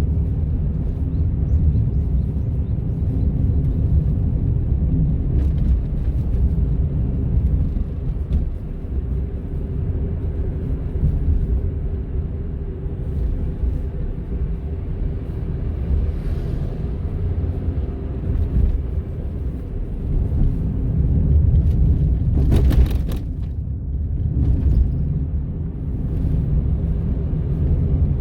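Honda N-ONE kei car driving, heard from inside the cabin: a steady low road and engine rumble with a constant hum in it, the kind of motor-like noise the owner suspects is a fault at 300,000 km. A brief rushing noise cuts through about 22 seconds in.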